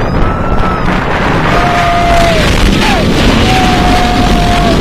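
Wind buffeting the microphone and the roller coaster train running at speed on the track as it crests a hill and drops, with riders letting out several long held yells.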